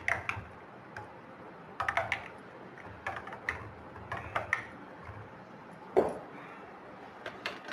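A spoon stirring a milky drink in glass tumblers, clinking and tapping against the glass in short clusters of clicks, with a single louder knock about six seconds in.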